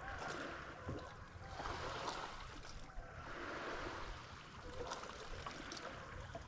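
Faint water lapping against a small fishing boat's hull, with a few light clicks and knocks.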